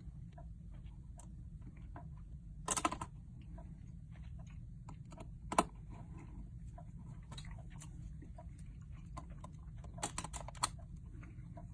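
Light clicks and taps from an M.2 SSD heatsink being handled and fitted onto a motherboard: scattered small ticks, a quick rattle of clicks about three seconds in, one sharp click near six seconds and another short run of clicks around ten seconds.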